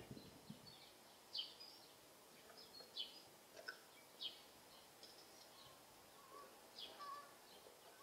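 Faint, short, high chirps of small songbirds calling every second or so over a quiet outdoor hiss, with a soft bump right at the start.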